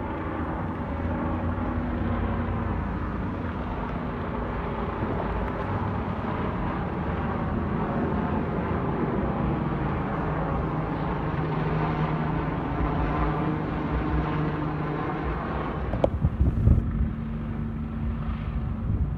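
Helicopter hovering and circling overhead, its rotor and engine sounding steadily. A click and a few bumps of wind on the microphone come about sixteen seconds in.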